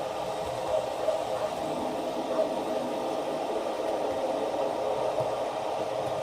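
Steady hiss played through the small speaker of a model-railway thunder-and-lightning effects unit, even and unbroken, with no thunderclap.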